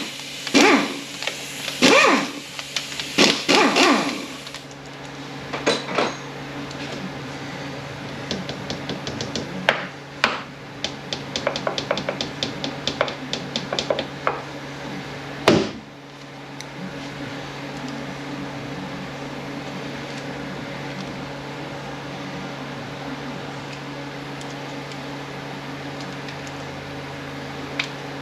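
Hand ratchet clicking in quick runs as the 10 mm bolts of an automatic transmission's accumulator cover are worked loose, with a sharp click near the middle, over a steady low shop hum. A few loud short sounds come in the first four seconds.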